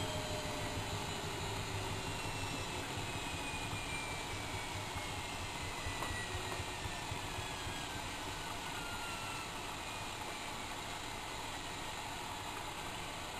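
Bauknecht WAK7760 washing machine with its drum spinning down, a motor whine falling steadily in pitch over about ten seconds over a steady rushing hum.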